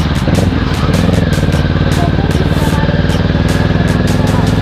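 Kawasaki ER6N's parallel-twin engine running at a steady speed, its pitch holding level, with bursts of wind or road noise over the top.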